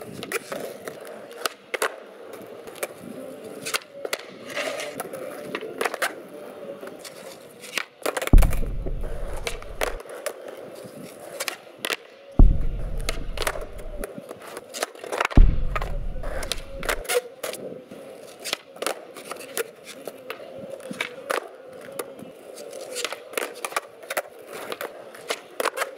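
Skateboard on concrete flatground: repeated sharp clacks of the board being popped and landing, with wheels rolling. Three heavy landings about a third, a half and two thirds of the way through are the loudest hits, each followed by a low rumble lasting a second or so.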